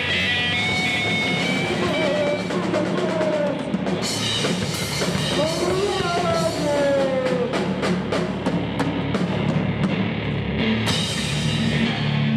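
Electric guitars, bass and a drum kit playing loud, chaotic metal, with sliding guitar notes and fast, pounding drum hits from a few seconds in.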